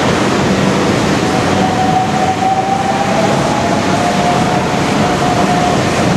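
Kitakyushu Monorail straddle-beam train, rubber-tyred, running through the station without stopping: a loud, steady running noise, with a whine that sets in about a second in, falls slightly in pitch and fades out near the end.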